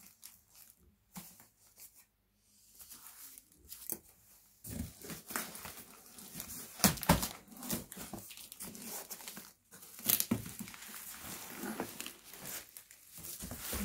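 Corrugated cardboard box being torn open by hand, with rustling and crinkling of bubble wrap around the packed item. It begins with a few light clicks, then from about four seconds in turns into continuous tearing and rustling with several sharper rips.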